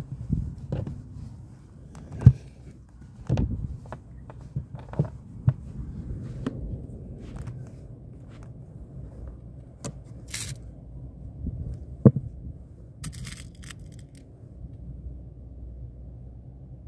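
Handling noises: irregular knocks, clicks and scraping as things are moved about by hand, with two sharper knocks and a few short hissing bursts.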